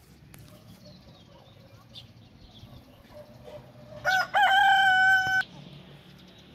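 A rooster crows once, about four seconds in: a short opening note, then a long, steady held note of about a second that cuts off abruptly.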